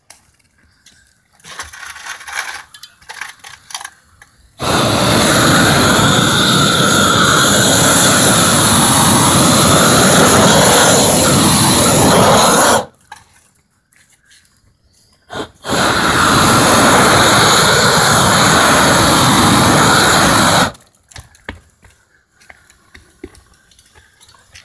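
Propane roofing torch opened up to full flame twice, heating torch-down modified bitumen membrane: a loud steady rush of about eight seconds, then one of about five seconds, each cutting off suddenly as the valve is released.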